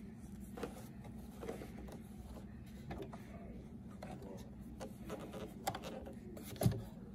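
Fabric and stretch trim rustling as they are handled and positioned under a sewing machine's presser foot, with a few light clicks and one sharper knock near the end, over a low steady hum. The machine is not stitching.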